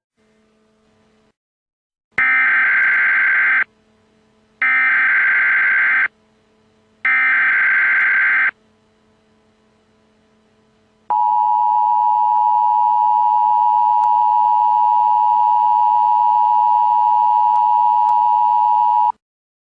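Emergency Alert System header: three identical bursts of shrill warbling data tones, each about a second and a half long, followed by the steady two-tone EAS attention signal held for about eight seconds and cut off abruptly.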